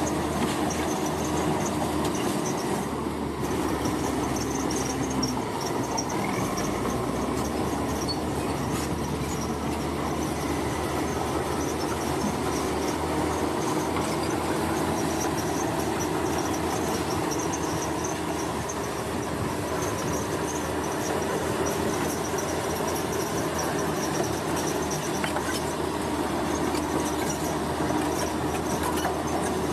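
Heavy road-construction machinery running steadily, a continuous mechanical rumble and clatter with a faint squeal, without a break.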